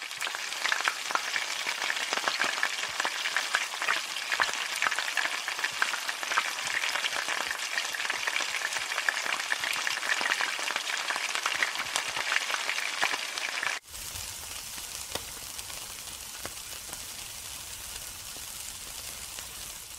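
Hot oil frying hard in a wok, with dense crackling and popping; about 14 seconds in it cuts to a quieter, steadier sizzle with a low rumble beneath, from meat skewers grilling over charcoal.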